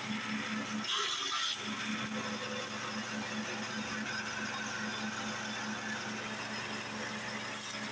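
Grass chopper machine running steadily with a pulsing hum. A brief burst of higher-pitched noise comes about a second in.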